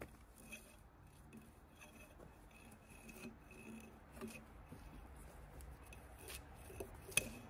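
Hand tools scraping bark and mud off a log, faint rasping scrapes with a few short sharp knocks, the sharpest near the end. The log is being cleaned of dirt before it goes through the sawmill.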